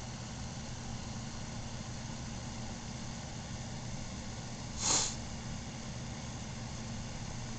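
Steady low electrical hum of room background, with one short breathy hiss about five seconds in.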